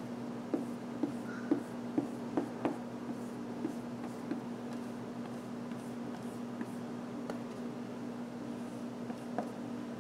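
Paintbrush working oil paint onto a canvas: soft strokes with a run of sharp light taps in the first three seconds and a few more later, over a steady hum.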